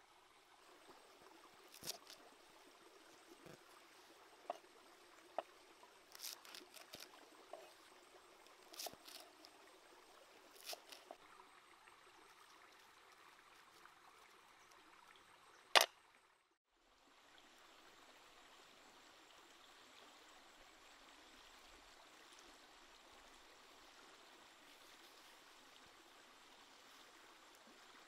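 Faint steady hiss like running water, with scattered light clicks and taps through the first half and one sharp click about sixteen seconds in, after which the sound drops out for about a second before the hiss returns.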